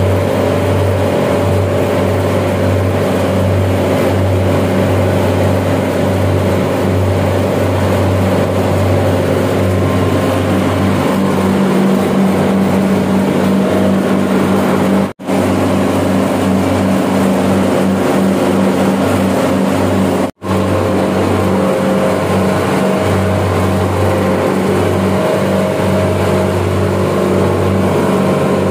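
Steady mechanical drone of running chiller machinery: a strong low hum with several held tones over a rushing noise. The sound cuts out for an instant twice, about halfway through.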